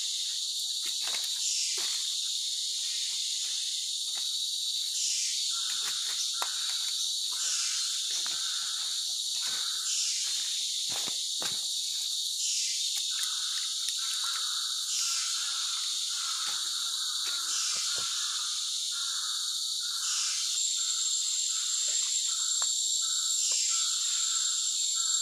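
Forest insect chorus: a steady high buzzing with swells that repeat about every two seconds. A bird calls in runs of short repeated notes, starting about five seconds in and nearly continuous in the second half.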